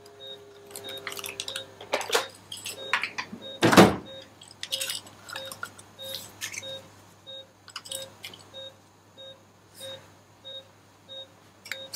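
Patient monitor beeping once per heartbeat, about 95 beeps a minute. Handling clicks and rustles fill the first half, with one loud thump about four seconds in.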